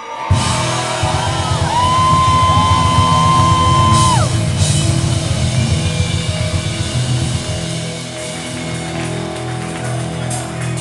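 Live rock band playing loudly, drum kit under a long, bending high note that holds for a couple of seconds and falls away about four seconds in; later the band settles into a steadier groove with a held bass line.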